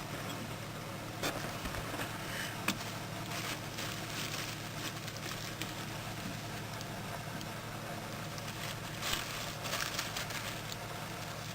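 Steady low hum with small scattered clicks and scratchy rustles: a sharp click about a second in and another near three seconds, and a patch of rustling towards the end.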